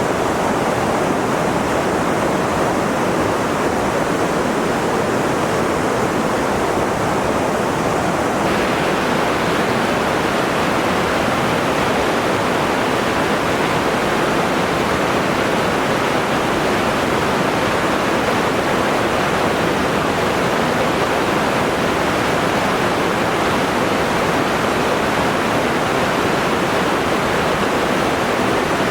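Steady rushing of falling or running water, an even hiss with no breaks; about eight seconds in it turns brighter and more hissy.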